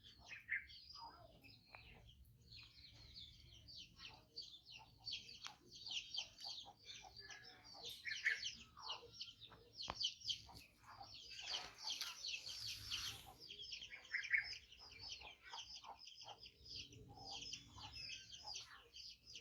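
Birds chirping and chattering continuously in many short, high-pitched calls, busiest about the middle.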